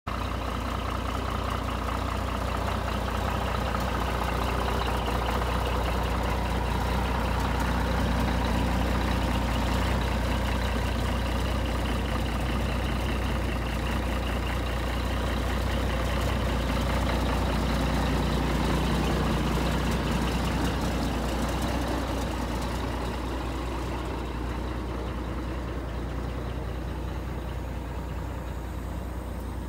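Scania 124G 420 truck's inline-six diesel idling steadily, a deep even rumble, growing somewhat fainter near the end.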